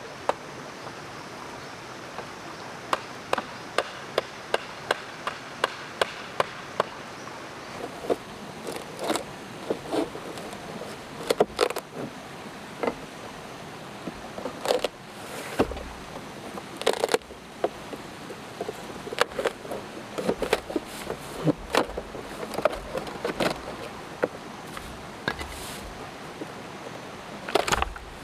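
Irregular sharp knocks and clicks, at times several a second, from hand work with wood or bamboo, over a steady background hiss of forest insects.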